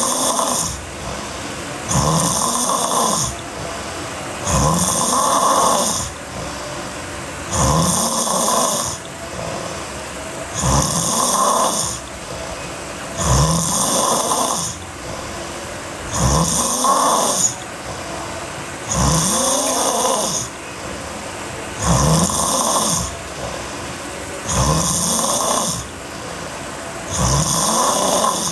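Girl snoring heavily in her sleep. A loud, rasping snore comes about every two and a half to three seconds, each lasting about a second, with quieter breathing between.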